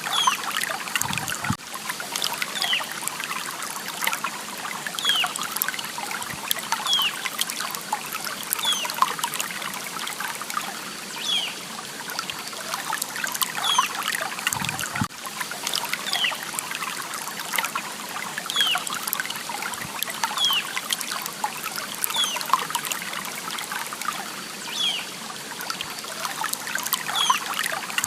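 Small stream trickling and burbling over stones, with a short high falling note repeating about once a second.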